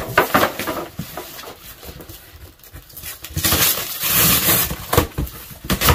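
Cardboard boxes being shifted and handled, with knocks and rustling, then a harsh rasping tear lasting about a second and a half a little past the middle as a taped cardboard box is pulled open, followed by a couple of sharp knocks.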